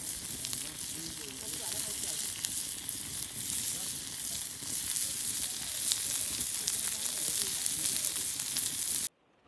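Pork sizzling on a stone slab over an open wood fire: a steady hiss with many small crackling pops. It cuts off suddenly near the end.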